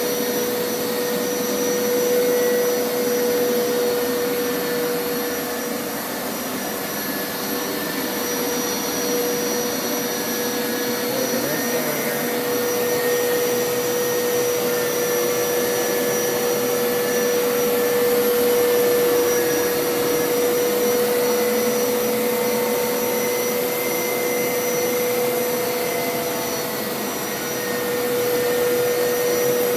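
Hoover Power Scrub Elite carpet washer running continuously on a wash pass: a steady motor whine over a rushing noise, swelling and easing slightly in loudness.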